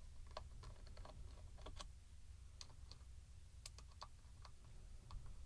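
Faint, irregular small clicks and taps as a headphone ear cup is handled and pried apart.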